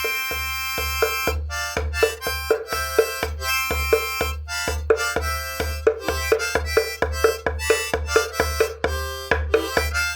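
Instrumental music with quick struck notes over sustained reedy tones and a steady low pulse.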